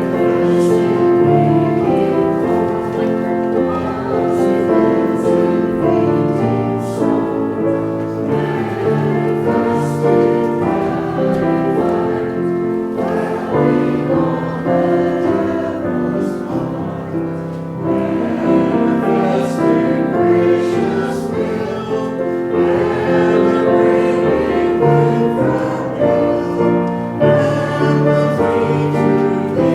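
Church choir singing a slow hymn with instrumental accompaniment, in sustained chords that change every second or two.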